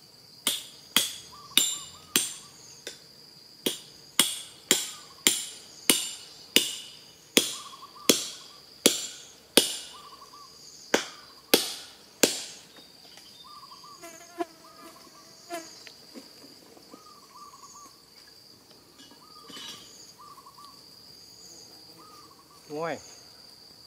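About twenty sharp hammer blows on wood in a steady run, roughly two a second, stopping about twelve seconds in, as a climber hammers pegs into a tree trunk to climb it. A steady high insect trill runs underneath.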